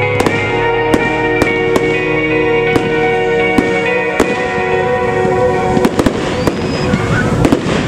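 Fireworks display: aerial shells bursting in a run of sharp bangs, over music with long held chords. The music fades out about halfway through, leaving denser crackling bursts.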